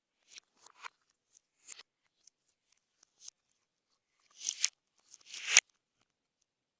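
Slime being worked by hand, giving scattered small crackling pops and two louder crackly bursts, about four and a half and five and a half seconds in.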